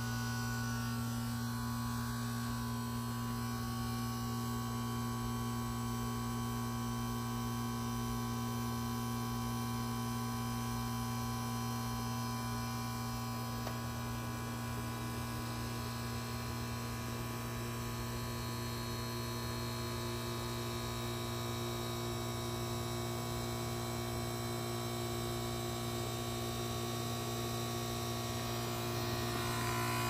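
Reciprocating compressor of a 2010 Goodman GSZ13 heat pump humming steadily during a defrost cycle, with the outdoor fan stopped. The hum gets a little louder near the end.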